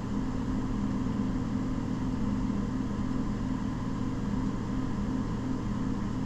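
Mazda 6 3.0 L V6 engine idling steadily, a low even hum.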